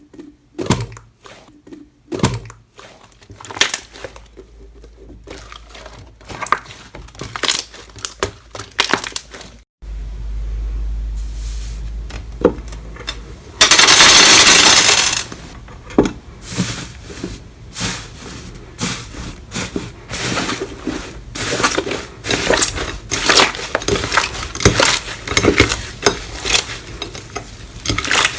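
Slime being squeezed and pressed by hand, giving many quick crackles, pops and clicks. A loud hissing burst lasts about a second and a half halfway through.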